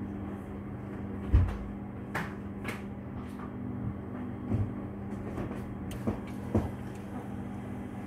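A steady low hum with a few short knocks and thumps over it, the loudest a deep thump about a second and a half in.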